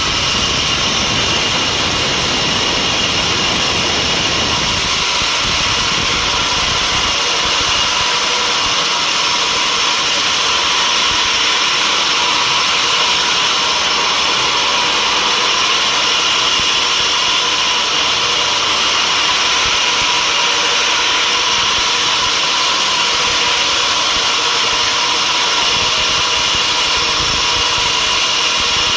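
Sawmill machinery running steadily: a loud, even mechanical whine and hiss. A low rumble dies away over the first several seconds.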